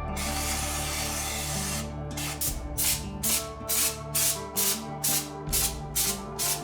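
Background music with held tones and a shaker-like beat of about two strokes a second. For about the first two seconds a steady spray hiss runs under it.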